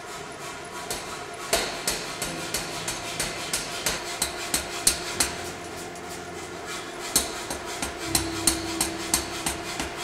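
Nazel self-contained air power hammer striking a red-hot bar in rapid, even blows, about three a second, starting about a second and a half in. A steady hum runs beneath.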